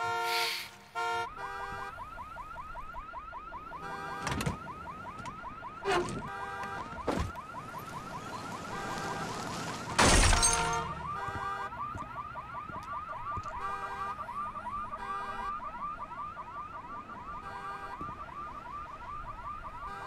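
Car alarm sounding, a repeating warbling electronic tone mixed with steady horn-like blasts. A few thumps break through it, the loudest a heavy crash-like impact about halfway through.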